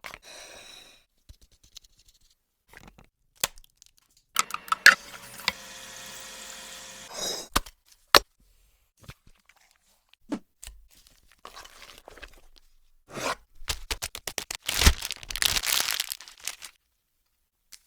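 Food-preparation handling sounds: scattered sharp clicks and knocks, a sustained pitched scraping or tearing sound lasting about three seconds from around four and a half seconds in, and a dense run of rapid clicks and crunching noise in the last few seconds.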